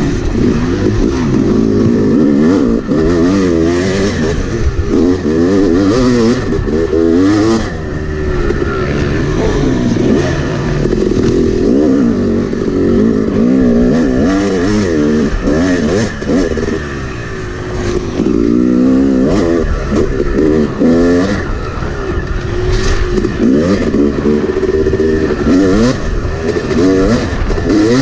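Yamaha YZ250X two-stroke dirt bike engine heard close up from on board, revving up and falling off again and again as the rider works the throttle through the gears at speed.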